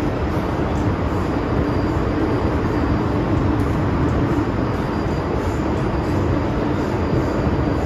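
MTR M-train running at steady speed through a tunnel, heard from inside the car: a steady, loud rumble of wheels on rail with a constant hum.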